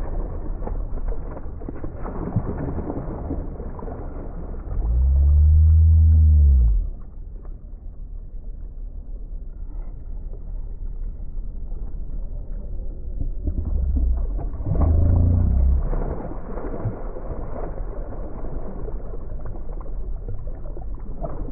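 Muffled, dull rumble of wind and choppy water, with splashing from a hooked speckled trout thrashing at the surface. A deep hum swells up and falls away about five seconds in, and a weaker one follows around fifteen seconds.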